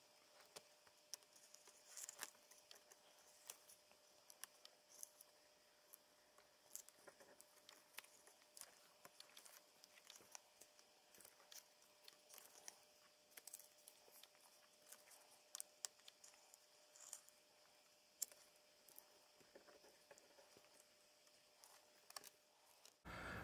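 Near silence broken by faint, scattered small clicks and ticks: fingers handling a flat ribbon cable and its plastic clamp connector on a laptop's circuit board.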